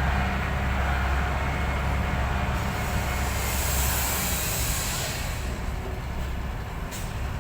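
Diesel engine of heavy earthmoving machinery running steadily with a deep, even rumble. A hiss rises over it from a few seconds in and fades again before the end.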